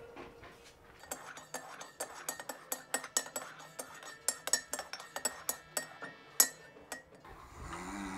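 A spoon clinking against a cup, many quick light clinks over about six seconds, as in stirring coffee. A soft rushing sound rises near the end.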